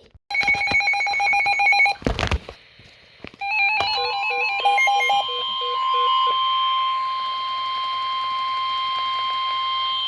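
Weather-radio alert signal: a burst of fast warbling digital data tones, a short crackle about two seconds in, then more stepping tones with short beeps. From about four seconds in comes a long steady single-tone warning alarm, the alert tone that heralds a National Weather Service warning broadcast (here a flash flood warning).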